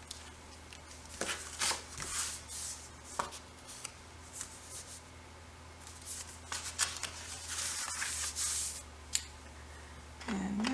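Paper and cardstock being handled and slid over a work surface: rustling with a few light taps and clicks, the rustling heaviest around two seconds in and again near eight seconds.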